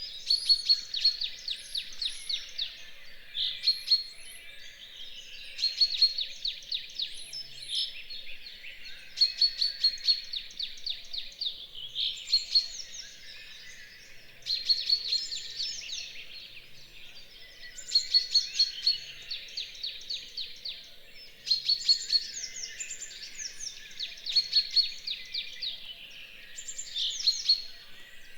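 Dawn chorus of songbirds: rapid trilled songs, each a run of quick, evenly spaced notes lasting one to three seconds, sung one after another with short gaps, with higher chirps from other birds over them.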